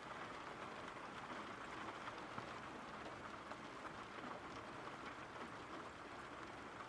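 Steady rain falling, faint and even, from a rain-sound background track.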